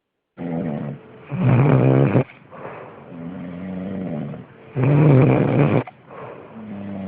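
Loud snoring, a softer snore alternating with a louder one about a second long. The louder snores come twice, about three and a half seconds apart.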